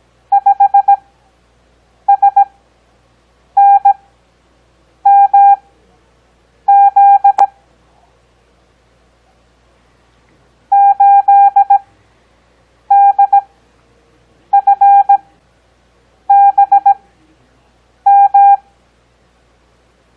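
Morse code practice tones: a single steady-pitched beep keying out characters at 17 words-per-minute character speed with Farnsworth spacing slowed to 6 words per minute. Ten characters come as quick clusters of dots and dashes, each followed by a pause of a second or more, with one longer gap midway marking a word break.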